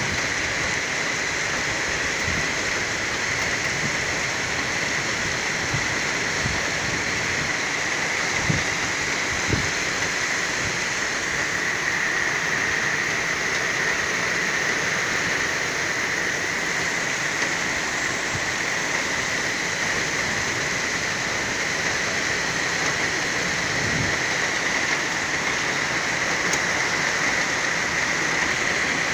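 Heavy torrential rain pouring steadily, a dense even hiss, with a few sharper taps standing out around the middle and near the end.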